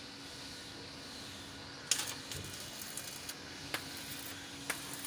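Electric arc welding: about two seconds in the arc is struck and then runs with a steady crackling hiss and irregular sharp pops.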